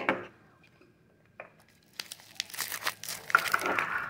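A hard plastic knock on the table, then about two seconds in a plastic wrapper crinkles and rustles as it is handled.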